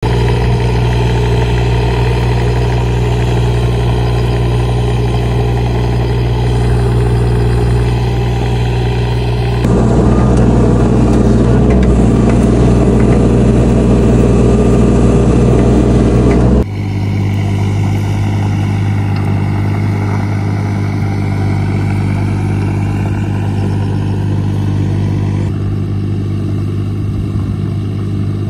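Yanmar mini excavator's diesel engine running steadily as the machine levels soil. For a stretch in the middle it is heard close up from the operator's seat, louder and rougher, then farther off again after about 16 seconds.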